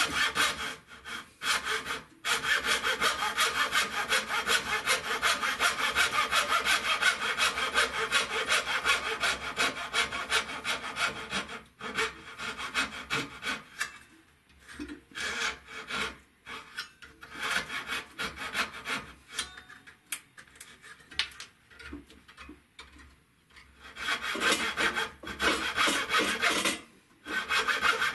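Thin-bladed hand frame saw cutting walnut at a hand-cut dovetail joint, in rapid, even strokes. About twelve seconds in the sawing stops, and for some ten seconds there is only quieter, scattered rubbing and handling of the wood. The strokes start again near the end.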